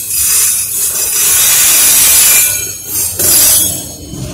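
Freight train of autorack cars rolling past close by: a low rumble of wheels on rails under a loud hiss that swells and dips every second or two as the cars go by.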